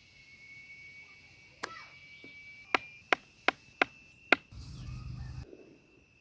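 A series of sharp knocks, like chopping: one, then five more in quick succession at about three a second, followed by a brief dull rumble. A steady insect trill runs underneath.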